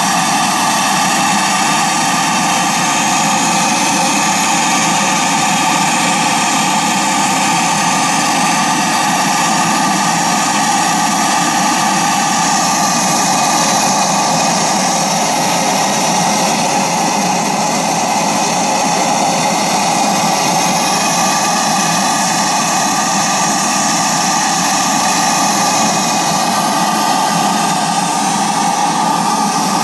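D-10 model steam engine driving a model paddle steamer, running steadily with a continuous rushing hiss.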